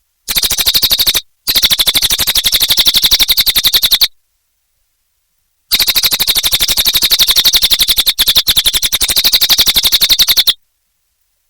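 Cililin bird singing a fast run of repeated sharp notes, about ten a second, in three bursts: a short one, one of about two and a half seconds, and a long one of about five seconds, separated by silence.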